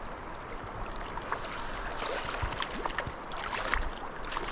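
Flowing river water with scattered small splashes and ticks at the surface.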